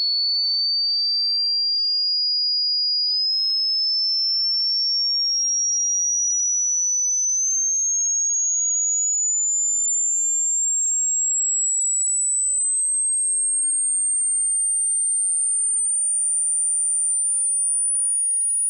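Hearing-test pure tone, a single steady whistle-like pitch sweeping slowly upward in small steps from high to very high. It passes 8 kHz about two-thirds of the way through, the pitch a listener over 60 should still hear if their ears are healthy.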